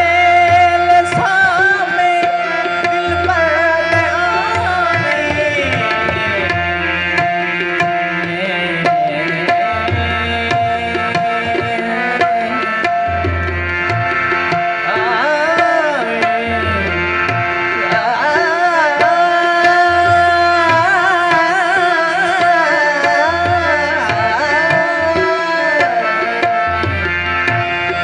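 Live Cholistani kafi: a male singer singing in phrases through a microphone over a harmonium's held notes, with a hand drum keeping a steady beat.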